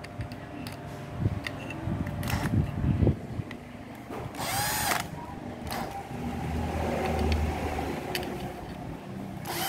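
Older Makita 24V cordless hammer drill with a brushed motor, run off a 12V battery, whirring in short trigger pulls and one longer run in the second half, with clicks of handling in between.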